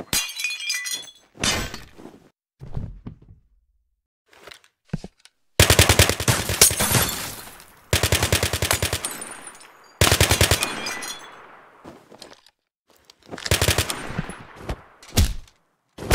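Automatic gunfire sound effect: four long bursts of rapid shots, the first about five and a half seconds in, with a single sharp shot near the end and a few scattered sharp hits before the first burst.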